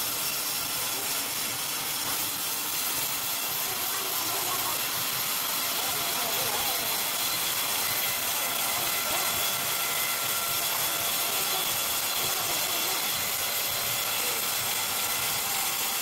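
Band sawmill running steadily, its blade sawing through a timber slab on the carriage with an even hiss and faint high tones.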